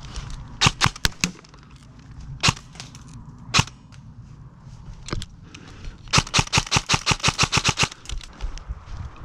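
Airsoft guns firing: scattered single shots, then a rapid burst of about a dozen shots lasting nearly two seconds.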